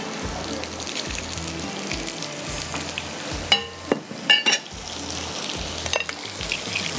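Oil sizzling steadily as skewered baby potatoes fry over chopped garlic in a frying pan, with a few sharp clinks about halfway through.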